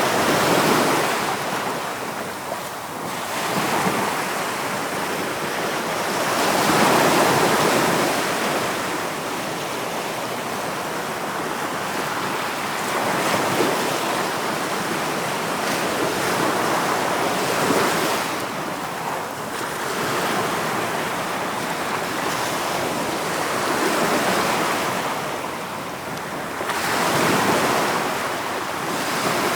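Ocean waves breaking and washing ashore, a continuous rushing surf that swells and falls back every few seconds.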